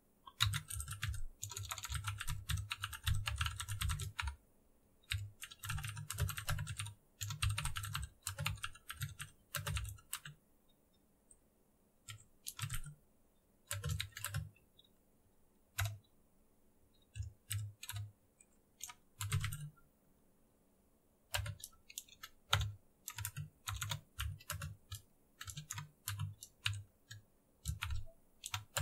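Typing on a computer keyboard: runs of quick keystrokes broken by short pauses of a second or two.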